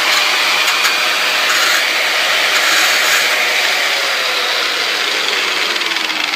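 Angle grinder grinding down a metal mount: a loud, steady grinding hiss over the motor's whine, which sinks in pitch through the second half.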